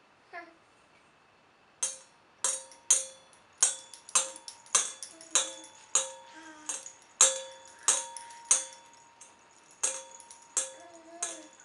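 Metal bowl struck over and over, about two hits a second, each a sharp metallic strike that leaves a ringing tone hanging.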